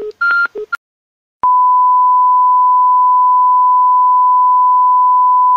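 A few short electronic beeps, then a click about a second and a half in and a loud, steady, single-pitch colour-bar test tone.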